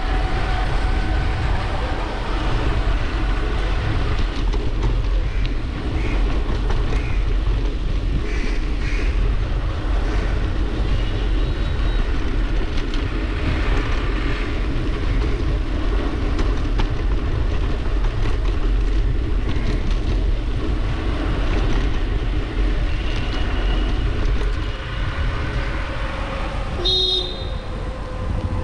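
Wind rushing over the handlebar-mounted camera's microphone, with road noise from a bicycle rolling along a wet street. A short high-pitched sound cuts in about a second before the end.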